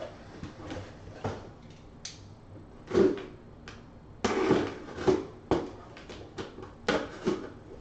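Cardboard card boxes being handled: irregular knocks, taps and short rustles, with the loudest bumps about three seconds in and again from about four seconds on.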